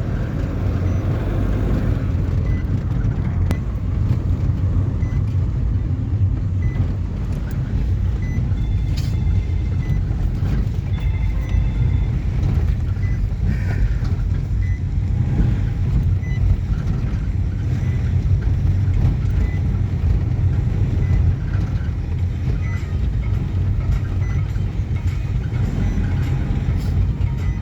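Steady low rumble of a road vehicle in motion, with faint short high beeps repeating at a regular pace.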